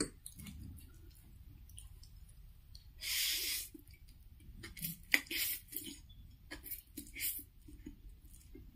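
A person slurping stir-fried Wai Wai instant noodles, with a loud half-second slurp about three seconds in and several shorter slurps later. One sharp click comes about five seconds in, and there is quiet chewing in between.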